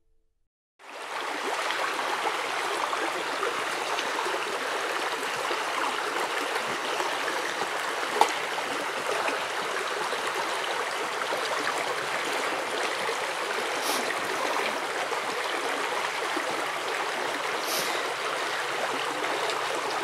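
Steady rushing of a flowing stream, starting about a second in, with a single sharp click about eight seconds in.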